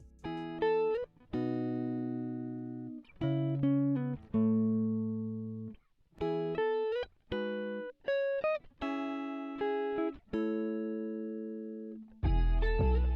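Background music: a melody of plucked guitar notes in short phrases with brief gaps, turning fuller with added bass near the end.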